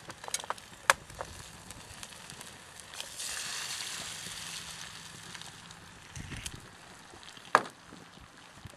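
Eggshell knocked sharply against a frying pan, then the egg dropped into the hot pan about three seconds in, setting off a sizzle that fades over the next couple of seconds. One loud sharp knock near the end.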